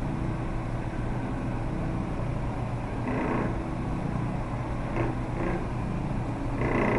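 Yorkster 500 oscillating rug finisher running steadily with a hum as its towel-padded base works over an area rug, with a few brief louder sounds about three, five and near seven seconds in.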